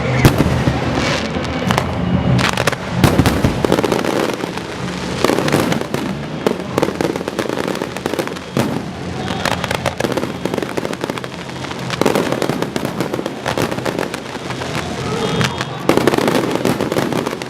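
Fireworks going off: a rapid, irregular run of bangs and crackles, closely packed and overlapping throughout.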